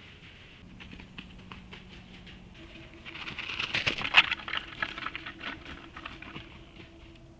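Deer startled and bolting through dry leaf litter: a quick run of crunching, rustling hoof falls that starts about three seconds in, is loudest a second later, then trails off.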